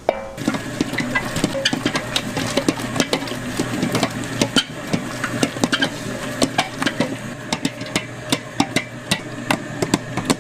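Hotteok-making machine running with a steady hum, amid many quick metal clicks and taps of the stall's cooking work.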